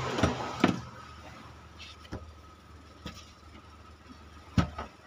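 Several sharp knocks and clunks from the metal chassis of a dbx 231 graphic equalizer being handled and turned over on a workbench. The loudest come about half a second in and again near the end.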